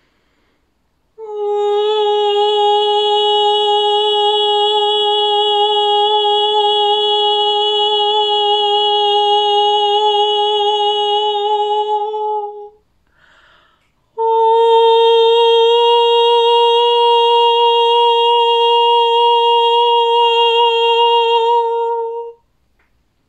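A woman's voice toning: two long sustained sung notes on nearly the same pitch, rich in overtones, with a slight waver and a short breath between them about halfway through.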